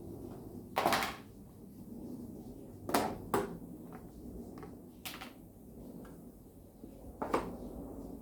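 Kitchen handling sounds: five separate knocks and clunks of things being set down or moved, over a low steady background.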